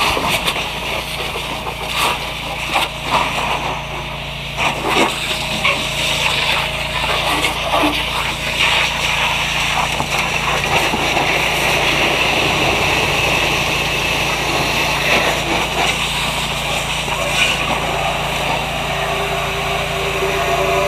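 Fire hose stream spraying water onto a burning car, a steady hissing rush of water and steam with some splashing and clatter early on. A steady low hum runs beneath.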